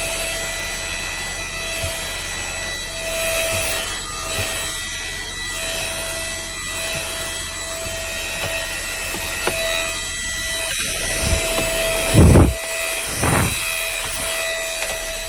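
Small cordless handheld vacuum cleaner running, a steady motor whine over a rush of suction air, with two low thumps near the end.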